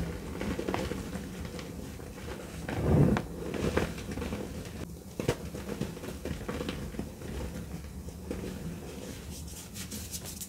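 Blocks of gym chalk squeezed and crumbled between bare hands: soft, dry, irregular crunching with scattered sharper cracks, loudest about three seconds in.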